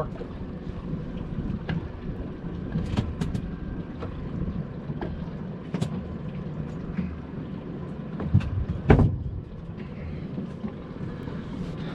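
Steady low rumbling noise aboard a small fishing boat, with scattered light knocks and clicks and a louder thump about nine seconds in, as a freshly caught Spanish mackerel is handled and measured.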